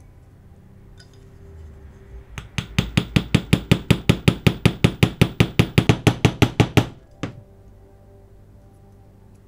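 Small hammer tapping rapidly on the end of a toy car's wheel axle resting on a metal watchmaker's anvil, about five sharp metallic strikes a second for some four seconds, then one last tap. The axle end is being peened into a new mushroom head to hold the wheels.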